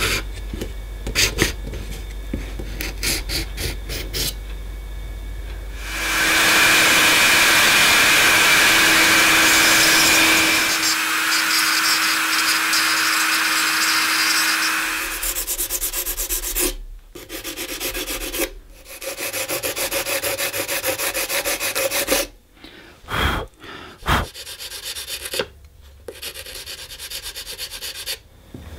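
Clicks and light scraping on a carbon-fibre part. About six seconds in, a rotary tool with a sanding drum starts grinding the carbon fibre, running loud and steady with a high whine for about nine seconds. After it stops come quick, repeated rubbing strokes by hand on the carbon fibre, with short pauses.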